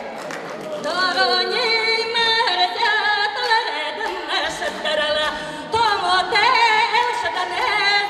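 A woman singing solo into a microphone: long held notes that step between pitches with small ornamental turns, with no clear accompaniment.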